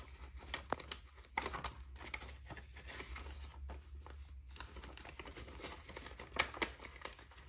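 Paper banknotes rustling and flicking as they are counted by hand and pushed into a clear vinyl pocket of a cash-envelope binder, with short crinkles and taps throughout and a few sharper snaps, the loudest about six and a half seconds in.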